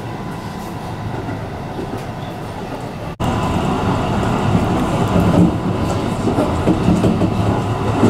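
Electric commuter train running along the track, heard from inside the driver's cab: a steady rumble of wheels on rail with some clickety-clack. About three seconds in it cuts abruptly to a louder, rougher rumble.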